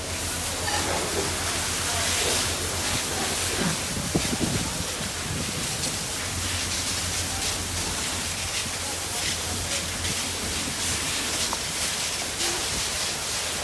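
Steady hissing spray of water from a fire hose on burning rubbish, with a steady low hum underneath.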